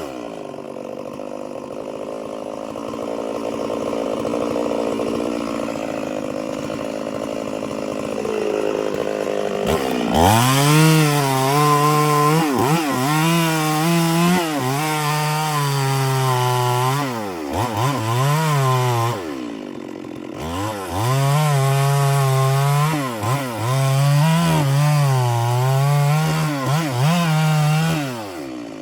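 Two-stroke chainsaw running at part throttle for about ten seconds, then revved to full throttle and cutting wood. Its engine note dips and recovers again and again as the chain bites in, easing off briefly a few times.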